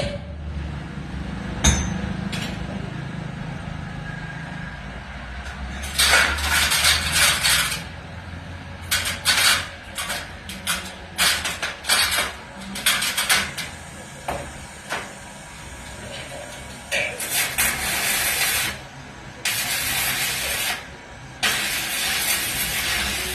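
Electric arc welding: the arc crackles and hisses in bursts, a string of short ones like tack welds, then longer runs of a second or two near the end.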